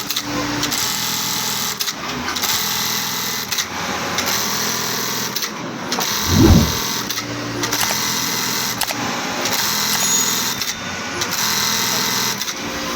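Blind stitch sewing machine running with a steady mechanical chatter, dipping briefly a few times, with one loud low thump about halfway through.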